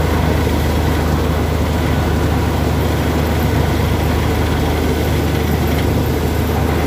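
Borewell drilling rig running steadily with a heavy low engine hum, over a continuous rush of compressed air blowing water up out of the borehole: the bore has struck water.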